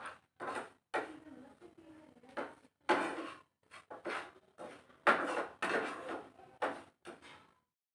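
A spoon scraping and stirring semolina roasting in a pan, in about a dozen quick, irregular strokes. The suji is at the browning stage, being roasted before milk goes in.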